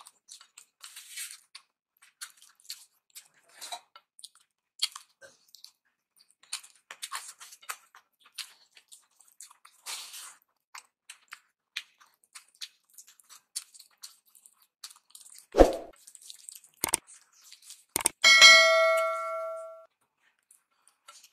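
Eating rice and dal by hand from a plate: soft wet squishing and mouth smacking and chewing, as small clicks throughout. A couple of dull thumps shortly before a sharp clink about eighteen seconds in that rings on for about a second and a half.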